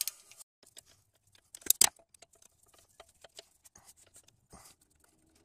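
Light handling noise around the engine parts: scattered small clicks and rubbing from a gloved hand, with two sharp clicks just under two seconds in.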